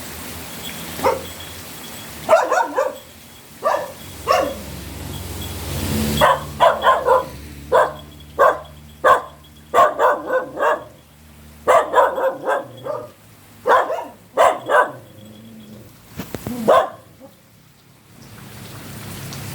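A dog barking repeatedly in quick runs of short barks, with pauses between the runs. For the first six seconds there is a steady hiss behind it.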